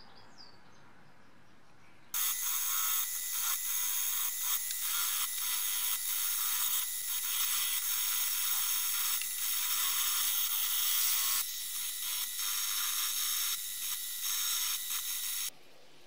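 A wire wheel brush spinning in a drill press scrubs a steel vice part clean, making a steady scratchy hiss. It starts abruptly about two seconds in and cuts off near the end.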